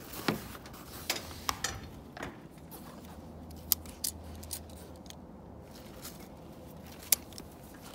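Sharp clicks and snaps of a hand-held maple tubing tool being squeezed and worked on the end of 3/16-inch sap line, as a fitting is pressed into the tubing. The clicks come singly and irregularly; the loudest are nearly four seconds in and about seven seconds in.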